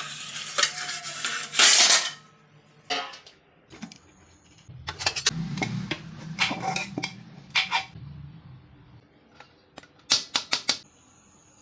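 Cutlery clinking and scraping against dishes while eating. A loud scrape comes in the first two seconds, then scattered knocks, and a quick run of sharp clinks about ten seconds in.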